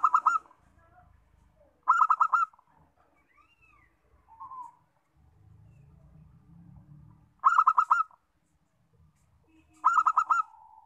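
Zebra dove (perkutut) calling: four short bursts of quick staccato cooing notes, each about half a second long, with pauses of two to five seconds between them.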